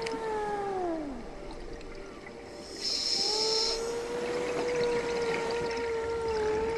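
Underwater recording with a long moaning tone that holds steady and then slides down in pitch, heard twice: one fading out about a second in, another from about three seconds in to the end. A short hiss of breath drawn through a scuba regulator comes about three seconds in.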